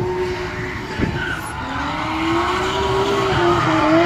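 A drift car's engine held high in the revs, its pitch rising and falling with the throttle, while its tires squeal and skid through a drift. A short knock sounds about a second in.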